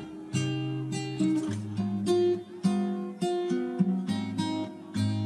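Background music: an acoustic guitar picking a melody, one plucked note after another.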